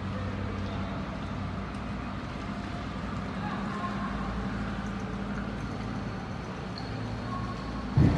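A steady low mechanical hum with outdoor city noise, and one sudden heavy thump near the end.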